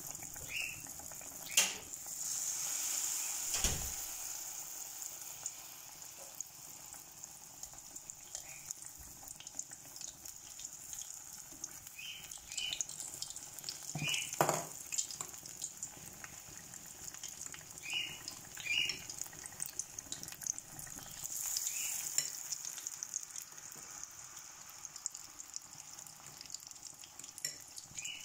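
Batter-coated slices deep-frying in hot oil, a steady high sizzle, with a few sharp clinks of a utensil against the pan.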